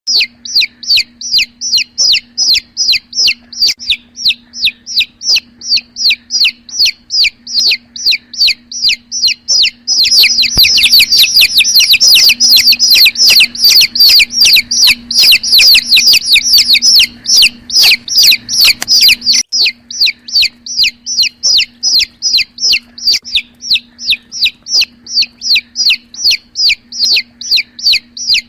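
Domestic chicken chicks peeping: short, high, falling peeps repeated about three times a second. From about ten seconds in, several chicks peep together, louder and overlapping, for around nine seconds, and then a single steady run of peeps resumes.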